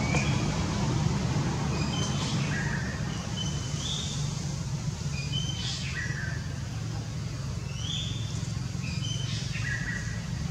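Birdsong: phrases of short, clear high notes at a few different pitches, repeating about every two seconds, over a steady low hum.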